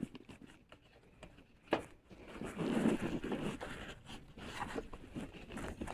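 Rustling and scraping of clothing or handling against the microphone, with one sharp click a little under two seconds in.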